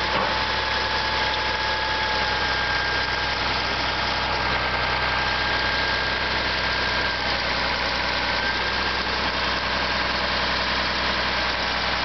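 Caterpillar D7G crawler dozer's diesel engine idling steadily, with a faint constant whine over the engine note.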